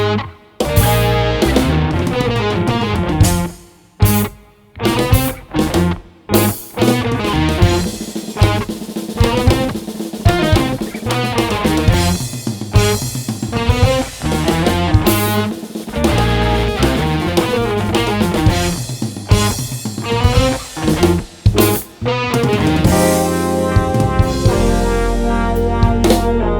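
Instrumental band music: electric guitar, bass and drum kit playing together, with several abrupt stops in the first six seconds, then continuous playing that settles into held chords over a deep bass near the end.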